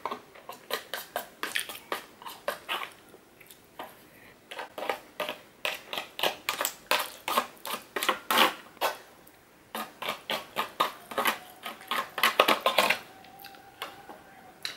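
Metal fork scraping and clicking against the inside of an aluminium foil takeaway tray in quick, irregular strokes with a few short pauses, as the last grains of rice are scraped out.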